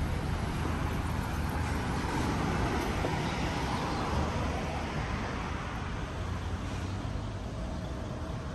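Road traffic on a city street: vehicle engine and tyre noise, a little louder a few seconds in, then easing off.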